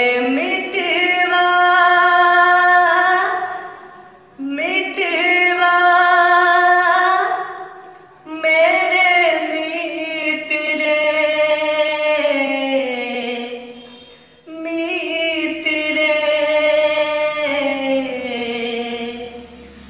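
A solo voice singing an Indian song unaccompanied, in four long phrases of drawn-out notes that bend in pitch, with short pauses for breath between them.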